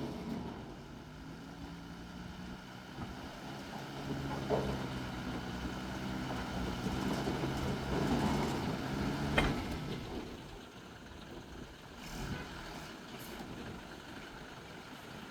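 JCB excavator's diesel engine running steadily, with two short sharp knocks about four and a half and nine seconds in. The engine sound fades away after about ten seconds.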